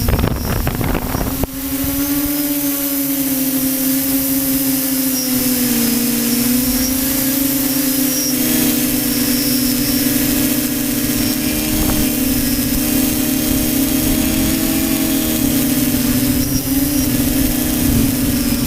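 Radio-controlled model aircraft in flight, its motor giving a steady drone whose pitch wavers slightly as it flies. Wind buffets the microphone for the first second and a half.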